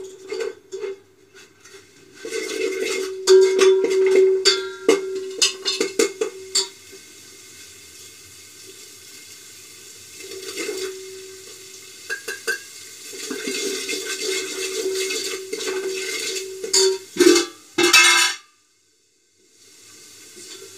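A spoon stirring and scraping in an aluminium pot as spices fry in hot oil on a gas burner, with sizzling and repeated knocks of metal on the pot. The pot is set down on the burner with a clank at the start.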